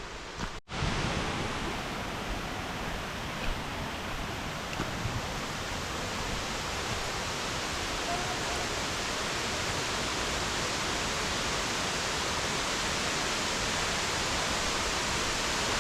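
Waterfall: a steady, dense rush of falling water that grows slightly louder toward the end. It follows a brief cut to silence just under a second in.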